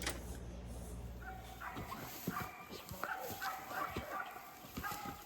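A steady low hum that stops about a second and a half in, then an animal's short, repeated high whining calls.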